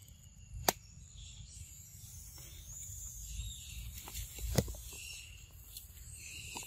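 Insects and birds chirping steadily in the background, with two sharp clicks or snaps: one under a second in and a louder one about four and a half seconds in.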